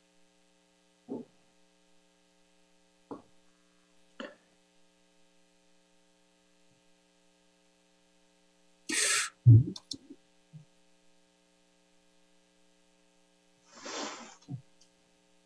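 Steady low mains hum on a video-call audio line, broken by a few faint clicks, a short loud hiss about nine seconds in followed at once by a low thump, and a softer hiss near the end.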